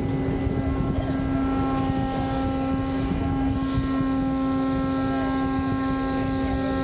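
Boat engine running steadily: a constant drone with a low rumble and a steady hum.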